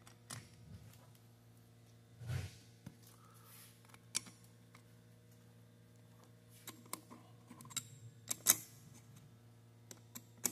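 Small metal clicks and taps of steel Allen-head bolts being handled, set into the bolt holes of a pump gearbox housing and turned in by hand, with a dull knock about two seconds in and a sharp click about eight and a half seconds in.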